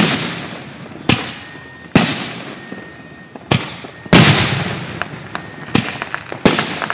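Aerial firework shells bursting overhead: about seven sharp bangs a second or so apart, each followed by a long fading echo, with light crackling near the end.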